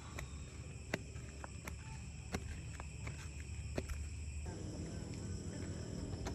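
Night insects chirring in a steady high trill, with sharp footstep slaps of flip-flops on concrete about every three-quarters of a second. About four and a half seconds in, a low steady hum comes in underneath.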